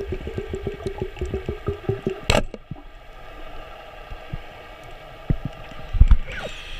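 Underwater, a fast run of ticking, about seven a second, stops as a speargun fires about two seconds in with a single sharp crack. Quieter water noise follows, with a couple of low thumps near the end.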